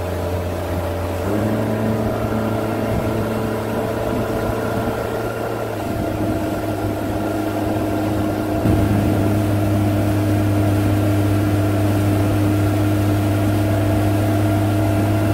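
Outboard motor of a small inflatable boat running steadily under way. Its pitch steps up slightly about a second in, and again, a little louder, about nine seconds in.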